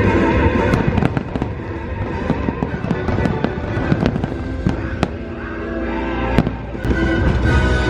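Fireworks bursting in a rapid, irregular run of sharp cracks and bangs over loud show music.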